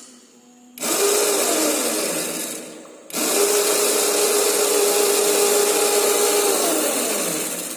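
Kid's electric ride-on motorcycle's drive motor spinning the raised wheel, in two runs: a short one of about two seconds, then a steady one of about four seconds, each whine rising as it starts and falling as it stops. The bike runs properly again, its dead battery replaced.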